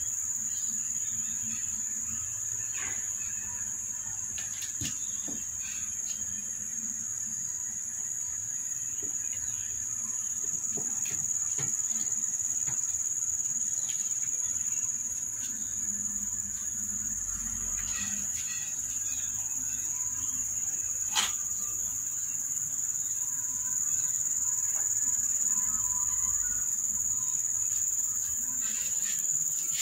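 Insects trilling in a steady, unbroken high-pitched drone, with occasional small clicks and knocks, the sharpest about two-thirds of the way through.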